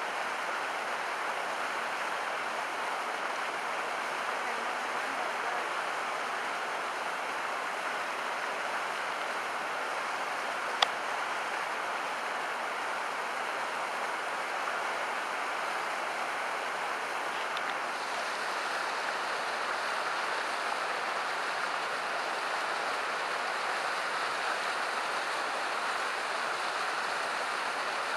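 Steady rush of flowing water, with one short sharp click about eleven seconds in.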